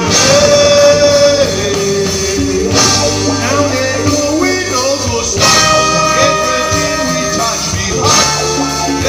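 Live band music with a man singing into a microphone, over electric bass, drum kit, keyboard and electric guitar. Strong accents land about every two and three-quarter seconds.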